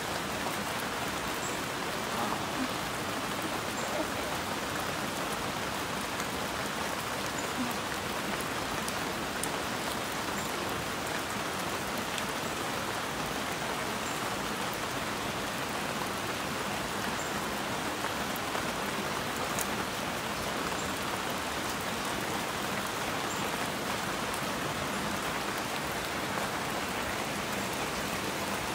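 Steady rushing of water in a rocky stream: an even, unbroken hiss with a few faint ticks.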